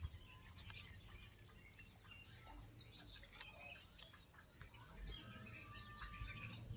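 Faint birds chirping here and there over low background noise.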